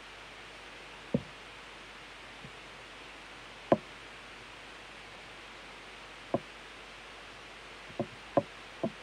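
Soft, short knocks, about six at irregular spacing, over a steady faint hiss. The loudest comes about four seconds in, and three come close together near the end.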